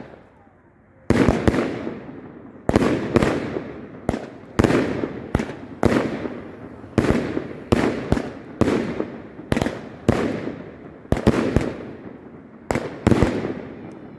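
Two 200-gram consumer firework cakes, Planet X SITH and First Order, firing together. They shoot flaming balls with report shells, giving a quick, uneven string of sharp bangs, roughly one or two a second, each trailing off. The bangs start about a second in after a brief lull.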